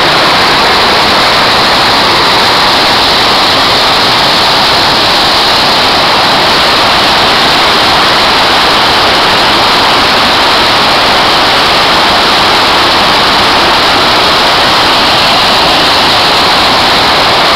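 Waterfall's water pouring down, a loud, steady rush with no breaks.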